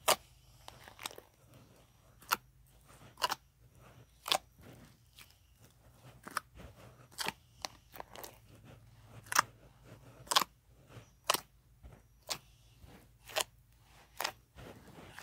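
Thick slime dotted with foam beads being squeezed and poked by hand in a plastic tub, giving sharp clicking pops about once a second.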